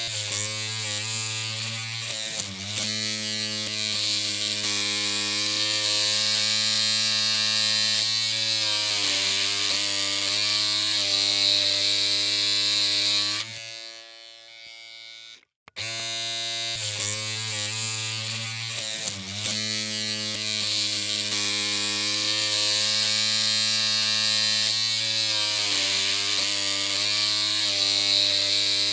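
Electric hair clippers running with a steady buzzing hum whose pitch wavers slightly now and then. About halfway through it cuts off for roughly two seconds, then starts again.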